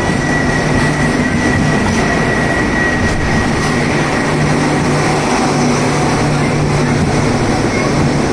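Express train's coaches running past close by at speed: a steady rush of wheels on rails with a low hum underneath. A thin high-pitched tone sounds over it for about the first three seconds, then fades.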